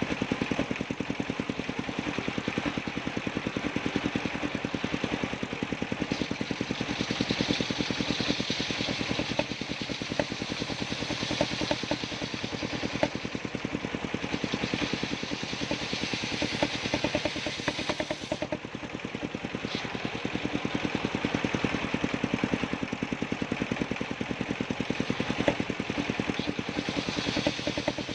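Circular sawmill running with a fast, even pulsing, its blade cutting sengon wood in passes that swell and fade every few seconds.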